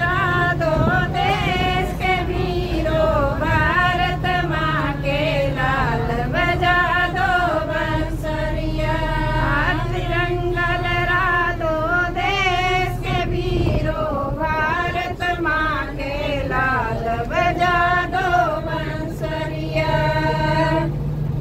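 A group of women singing a song together without instruments, with long held notes that waver in pitch, over the steady low hum of a bus engine.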